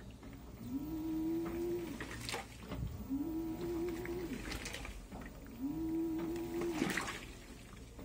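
Top-load washing machine agitating a soaked blanket in soapy water. The motor hums in three strokes about two and a half seconds apart, and each stroke is followed by a slosh of water.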